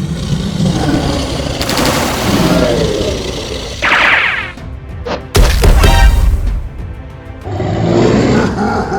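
Background music mixed with cartoon battle sound effects: a burst of rapid crackling shots, a quick rising zip, and a heavy boom about five seconds in.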